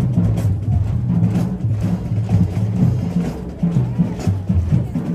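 Marching band playing in the stands: a drumline keeps a steady beat under sousaphones holding low bass notes that change pitch every half second or so.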